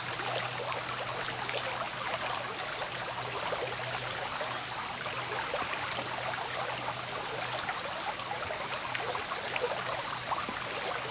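Small rocky woodland brook flowing steadily over stones and shallow riffles, an even babble of running water.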